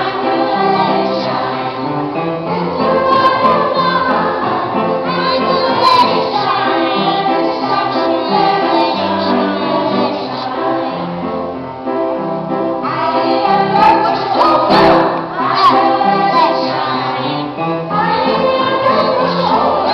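Music with a group of voices singing together, choir-like, with sustained held notes.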